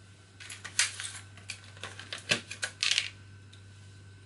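Clicks and plastic rustling from hands picking up and handling a digital caliper on a crinkly plastic sheet: a quick string of small clacks and crinkles over about three seconds, with the sharpest click about two seconds in.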